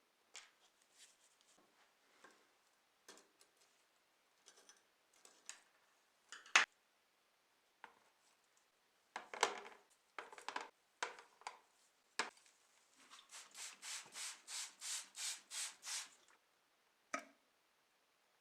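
Hand restoration work: scattered light clicks, taps and scrapes of handling, then about a dozen quick back-and-forth rubbing strokes, about four a second, like hand sanding or scrubbing a surface.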